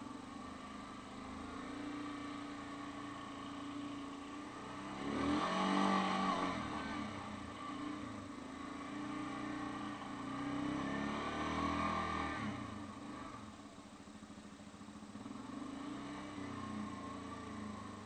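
Yamaha Grizzly 550 ATV's single-cylinder four-stroke engine running under load, with the revs rising and falling twice: loudest about five to six and a half seconds in, and again about ten to twelve seconds in.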